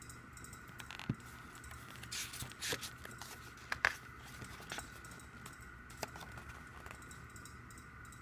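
Pages of a glossy photobook being turned by hand: paper rustling with a handful of sharp flaps and taps, the loudest about four seconds in, over a faint steady high hum.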